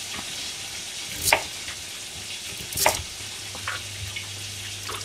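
Kitchen knife cutting rounds of sweet potato on a plastic cutting board: a few sharp knife strikes, the loudest about one and three seconds in, over the steady sizzle of deep-frying oil.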